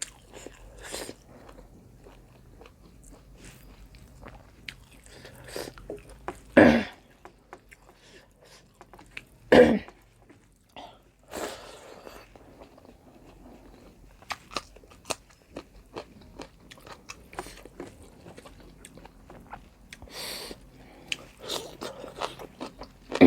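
A person eating at close range: chewing and crunchy bites, with many small mouth clicks and two louder sharp sounds about 7 and 10 seconds in.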